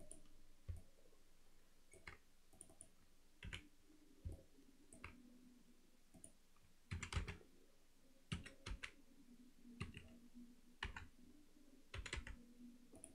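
Computer keyboard keys and mouse buttons clicking, about a dozen faint, irregularly spaced clicks in small groups, as keyboard shortcuts are pressed.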